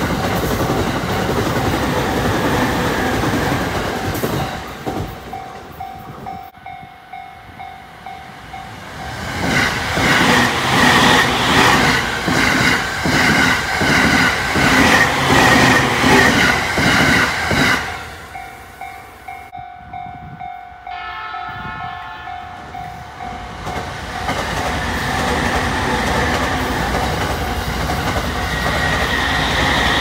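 Commuter electric trains passing one after another. First a JR E231 series local train, then, loudest about ten to seventeen seconds in, a JR E217 series rapid train with the rhythmic clickety-clack of its wheels over rail joints, then another E231 series local train. In the quieter lulls between the trains a steady ringing tone is heard.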